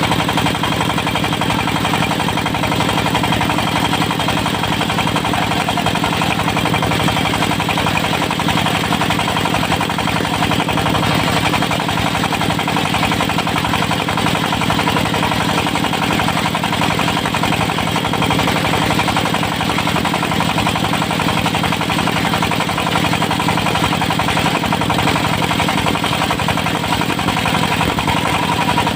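Diesel engine of a portable circular sawmill running steadily, with no change in level.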